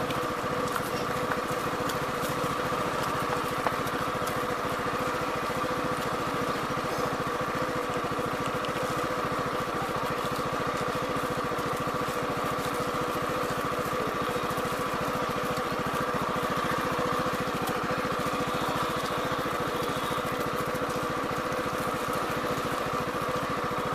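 Small engine idling steadily: an even, unchanging hum with a fine rapid pulse.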